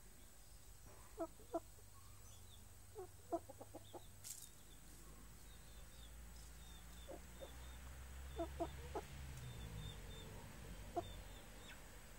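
Chicken clucking softly: short, low calls in scattered groups of one to five, some singly and some in quick runs.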